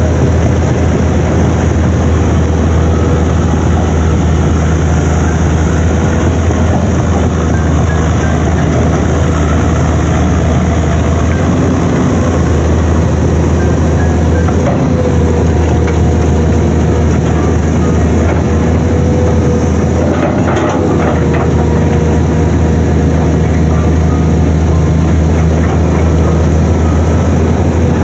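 Excavator's diesel engine running steadily with a deep hum, with a few metallic clanks about halfway through.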